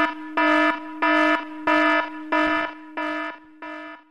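Electronic alarm sound effect: a buzzing, many-toned alarm note pulsing on and off a little more than once every half second, fading out near the end.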